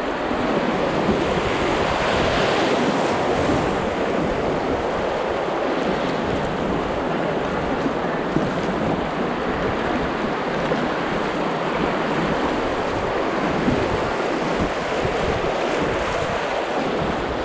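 Fast river water rushing over shallow riffles around an inflatable kayak, a steady loud rush, with wind buffeting the microphone.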